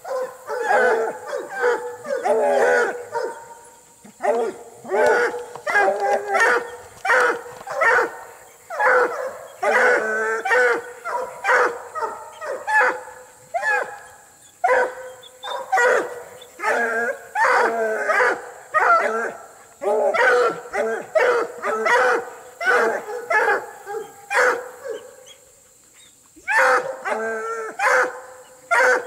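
Walker coonhounds barking and baying in quick succession, worked up over a raccoon in a wire cage, with a short lull about three quarters of the way through.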